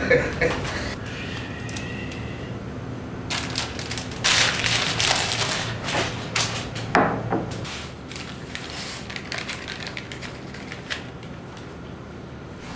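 Kitchen handling sounds: dishes and a cup clinking and a bowl of dry rolled oats rattling, in a dense run of clattering, rustling bursts from about three to seven and a half seconds in.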